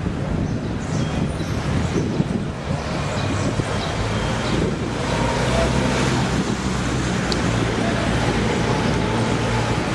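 Street traffic noise: car engines running with a steady low hum under a general haze of city noise.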